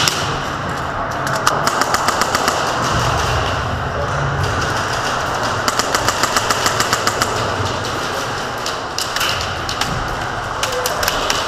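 Airsoft rifles firing full-auto bursts of sharp clicks, about ten shots a second, the longest burst just past the middle, over a constant din of gunfire echoing in an indoor field.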